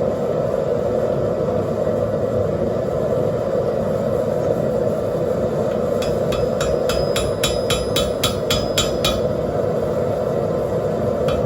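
Steady roar of a propane forge burner (Hell's Forge), with a fast run of about a dozen hammer blows on a 175 lb Trenton anvil starting about halfway through, about four a second with a ringing clink: hammering the rivet to join the two halves of the rebar tongs.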